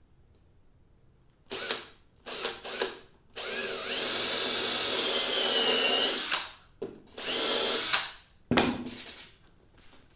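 Cordless drill boring pilot holes into laminated plywood: a few short trigger bursts, then a steady motor whine with the bit cutting for about three seconds, then two more short bursts.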